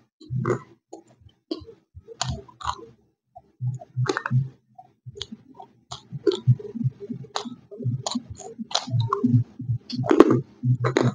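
Close-miked crunching and chewing of a hard white chalky piece eaten as 'white nakumatt', slate-crunch style. Sharp dry crunches sit over low chewing thuds, coming thicker in the second half, with the loudest crunch about ten seconds in.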